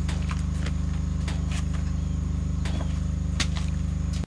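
A steady low droning hum with a fast, even pulse, with scattered light taps and clicks over it.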